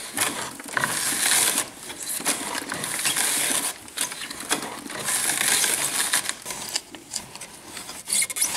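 Lumps of charcoal crunching and cracking as metal blades on a hand-turned spindle drag them through the slotted comb of a homemade charcoal grinder. The sound comes in irregular gritty bursts with sharp clinks.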